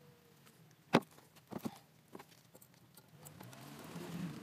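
Metal-on-metal work on a Speedi-Sleeve being fitted over a crankshaft's rear seal surface, played back sped up: one sharp metallic knock about a second in, two lighter clicks just after, and a rough scraping that builds near the end.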